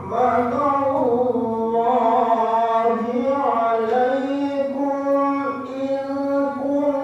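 A man reciting the Quran aloud into a microphone in a high, melodious voice (tilawah). He holds long, drawn-out notes that bend slowly up and down in ornamented turns.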